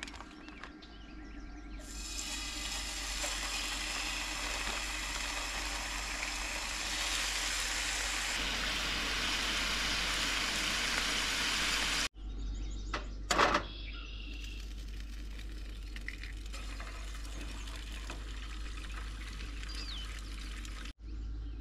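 Bacon strips sizzling in a frying pan on a propane camp stove, the sizzle coming up about two seconds in and holding steady. After a cut there is a sharp knock, then the quieter, even hiss of an egg frying.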